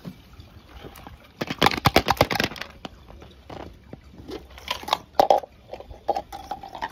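Hard objects clattering: a burst of rapid clicks and rattles about a second and a half in, then scattered sharp knocks.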